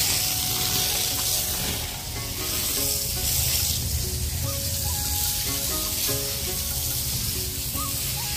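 Stationary single-cylinder diesel engine running steadily, belt-driving a concrete hollow-block making machine, with faint background music over it.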